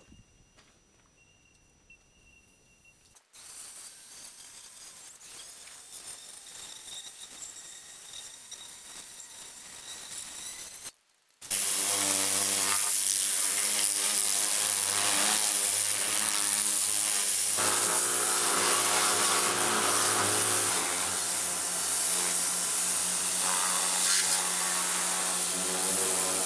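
Pressure washer blasting a steel vehicle chassis: a quieter hiss at first, then from about halfway a loud, steady motor hum with the hiss of the water jet over it.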